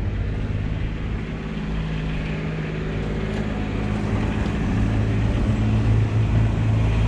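An engine running steadily, getting a little louder over the last few seconds.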